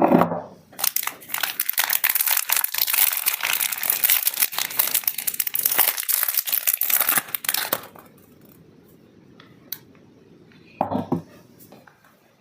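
Wrapping being crinkled, crumpled and torn off a bar of soap, a dense crackle for several seconds. A dull thump comes at the start and another near the end.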